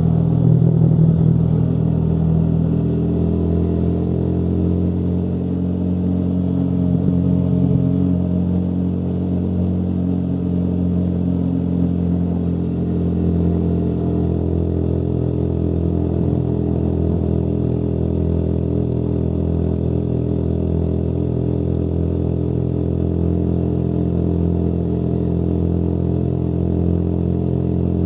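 Motorcycle engine running under way at a steady cruise; its pitch shifts slightly in the first several seconds, then holds even.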